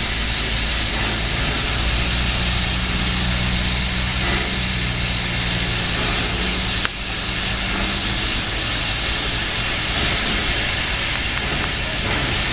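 Southern Pacific 4449, a GS-4 4-8-4 steam locomotive, standing and hissing steam steadily. A low hum runs under the hiss for several seconds, and a sharp click sounds about seven seconds in.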